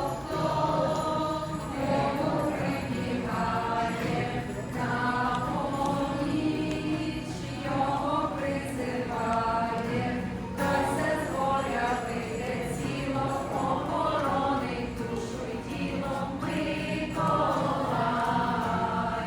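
A choir singing a song.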